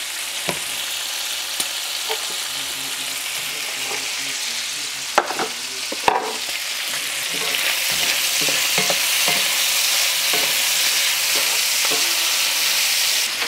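Chopped bacon sizzling as it fries in a cast-iron skillet, the sizzle growing louder about halfway through while it is stirred. A couple of sharp clicks sound a little past the middle.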